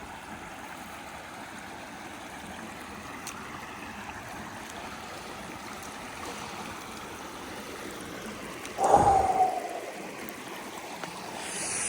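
River water flowing steadily over rocks. About nine seconds in, a short, louder sound with a slightly falling pitch cuts in.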